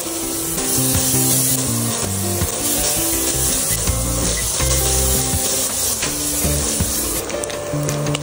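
Chilli and anchovy spice paste sizzling in hot oil in a wok as ingredients are tipped in and stirred, over background music with a stepping bass line. There are a few sharp clatters near the end.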